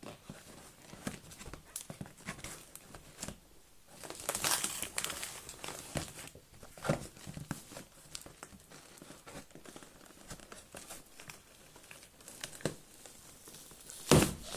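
Packing tape on a cardboard box being cut and picked at with a small blade: scratchy scraping and crinkling of tape and cardboard, with a longer louder scrape about four seconds in and a sharp knock near the end.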